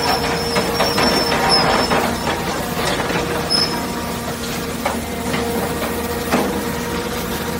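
Heavy hydraulic scrap-shear machinery running with a steady drone, with scattered sharp clanks of scrap metal now and then.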